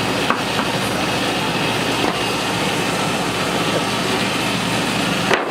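Woodworking machine running steadily, a continuous motor hum and whir. The sound breaks off for an instant near the end.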